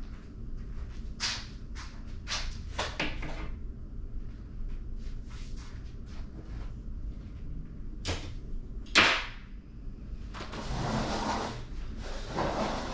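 Household tidying sounds: a few short scrapes and knocks, a sharper knock about nine seconds in, then a couple of seconds of cloth rustling as a garment is handled.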